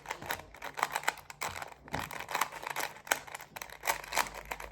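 Rubik's Cube being turned by hand during a solve: an irregular run of plastic clicks and clacks, several a second, as the layers snap round.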